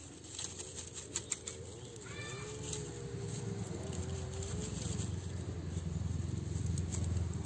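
An animal's drawn-out, wavering call about two seconds in, lasting two to three seconds, over a low rumble that grows louder through the second half.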